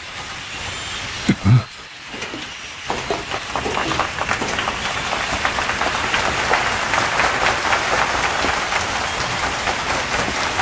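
Crowd applauding, the clapping building up from about three seconds in and then holding steady. Two short low thuds come just before it.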